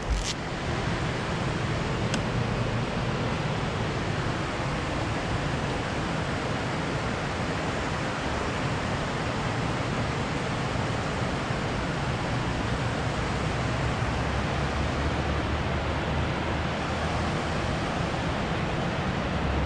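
Steady rush of turbulent river water flowing below a dam: an even, unchanging hiss.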